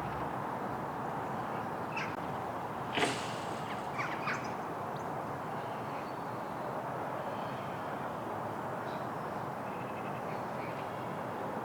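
Outdoor background ambience: a steady hiss with a few short, faint calls or clicks a few seconds in and faint thin chirps later on.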